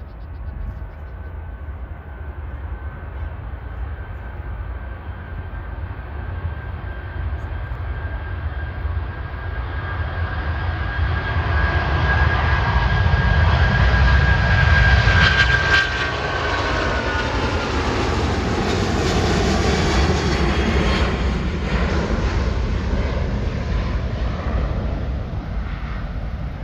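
Boeing 777 twin-engine widebody airliner taking off, its jet engines at takeoff thrust growing steadily louder as it rolls and lifts off. A high fan whine drops in pitch as the jet passes about 15 seconds in, leaving a deep rumble as it climbs away.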